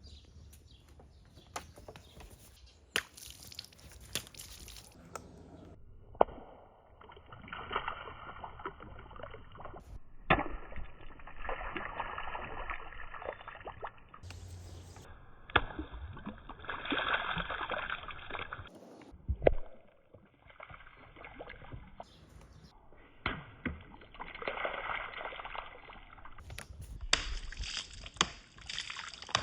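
Marbles rolling along a marble run track and through tubes, a rushing rattle broken by sharp clicks and knocks as they hit the track and each other. The sound comes in several short runs with abrupt changes between them.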